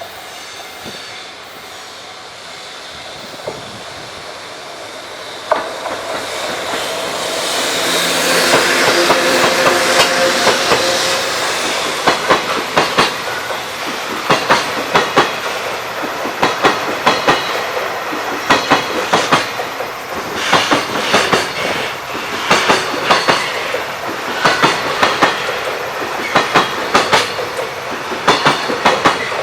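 Electric freight train passing: the locomotive swells up with a steady whine, then the freight wagons clatter over the rail joints in a long regular clickety-clack, the wheel clicks coming in close groups.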